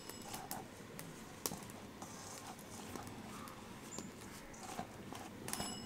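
A dry mix of gram flour, rice flour and spices being stirred together in a bowl: faint, scattered soft taps and clicks.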